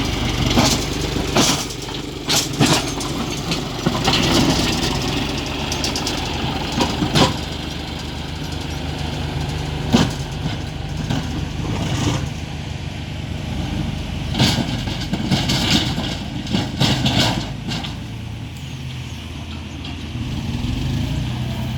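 John Deere tractor's diesel engine running steadily, with many short, sharp clattering noises coming and going over it.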